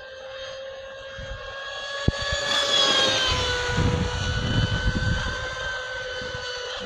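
Brushless electric motor of an RC speedboat (SSS 3674, 2075kV) whining at speed, with a steady high-pitched tone. It gets louder as the boat comes close about three seconds in, and its pitch drops slightly as the boat goes past. A low rumbling noise comes with the loudest part.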